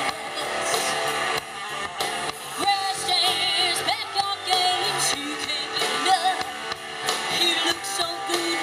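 Live country-rock band playing: drum kit, electric guitar and electric bass, with a woman singing over the band.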